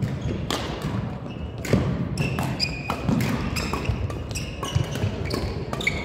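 Badminton play: sharp racket strikes and footfalls on the court, with sports shoes giving many short high squeaks on the floor.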